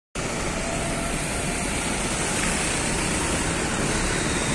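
Diesel bus engine running steadily under a constant hiss, after a brief dropout at the very start.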